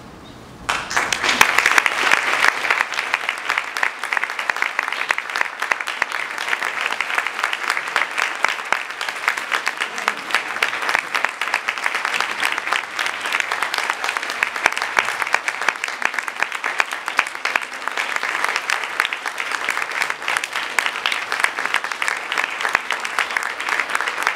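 Theatre audience applauding at a curtain call: dense clapping that breaks out suddenly under a second in and carries on steadily.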